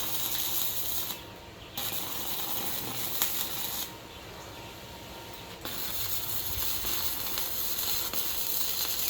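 Arc welding stainless steel nuts onto stainless steel brackets: a steady crackling hiss in three runs, breaking off briefly about a second in and again around four seconds in.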